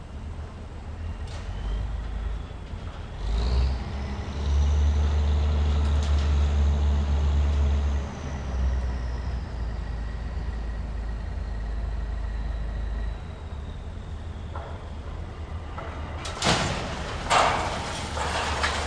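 Heavy diesel demolition machinery working: its engine revs up a few seconds in with a low rumble and a high whine that rises and then slowly falls, holds, then eases off. Near the end, broken concrete crashes down from the gutted building in several sharp cracks and clatters.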